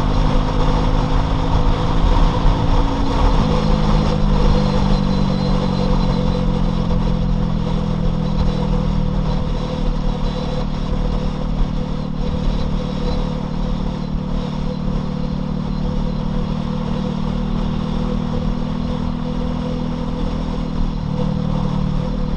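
Loncin LX250-12C 250 cc motorcycle engine running while riding, its pitch stepping down about three seconds in and again about nine seconds in, and changing again near the end, over steady road and wind noise.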